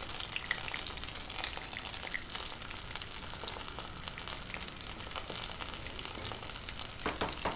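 Hot vegetable oil sizzling and crackling in a frying pan, with a flour-dredged piece of pike frying in it after it is laid in a few seconds in.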